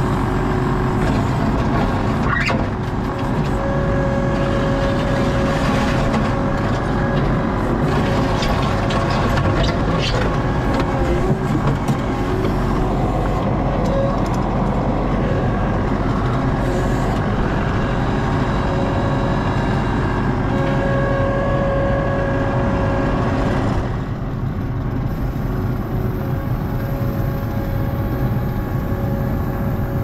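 ASV RT-40 compact track loader's diesel engine running under load, heard from inside the operator's cab, with a hydraulic whine that comes and goes and a few rattles and knocks from the machine. The engine note drops a little about three quarters of the way through.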